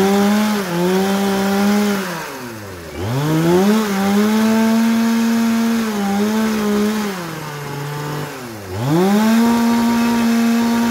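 Two-stroke chainsaw revved up to full throttle three times, held at a high steady whine for a few seconds each time and dropping back between runs, while cutting up felled logs.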